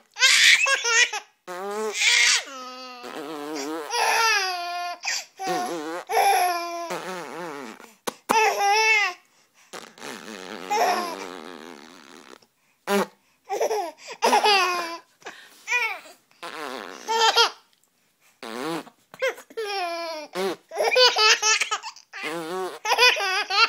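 A baby laughing in repeated bursts, each a second or two long, with short pauses between.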